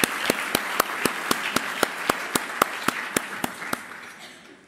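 Audience applauding, with one clapper close by standing out at about four claps a second. The applause fades away near the end.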